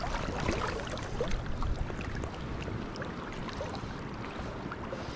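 River water lapping and splashing close by on a choppy surface, with small scattered splashes, busier in the first couple of seconds, and wind on the microphone.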